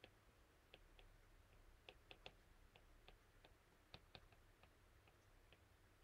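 Faint, irregular clicks of a stylus tip tapping on a tablet's glass screen during handwriting, a dozen or so scattered through a near-silent background.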